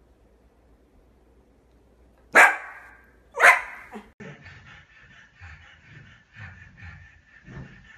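A dog barks loudly twice, about a second apart. Quieter, uneven sounds follow over a faint, steady high tone.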